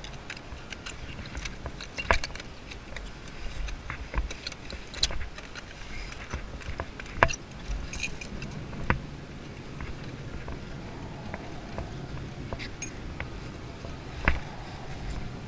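Irregular metallic clicks and clinks, the sharpest about seven seconds in and again near the end, over a steady low rumble.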